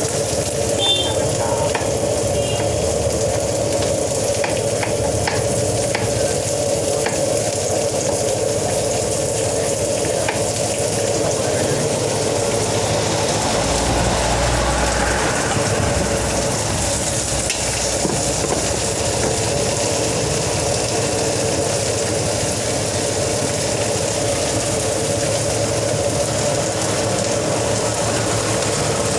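Fried rice sizzling in a wok: a steady frying hiss throughout, with a few sharp clicks in the first ten seconds.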